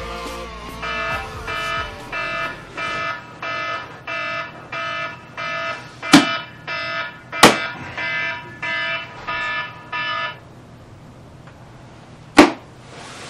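Alarm beeping in a steady repeating pattern, about one and a half beeps a second, cut off about ten seconds in. Sharp knocks cut through it twice around the middle, and one more, the loudest, comes near the end.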